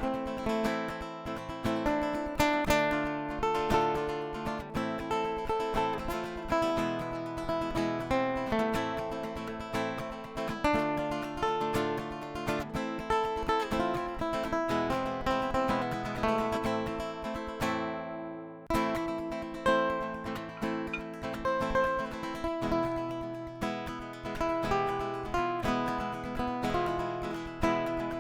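Background music of strummed and plucked acoustic guitar, with a brief break about two-thirds of the way through before it picks up again.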